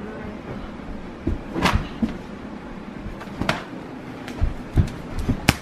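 Irregular thumps and knocks with a few sharp clicks, from two children scuffling by a couch heaped with clothes.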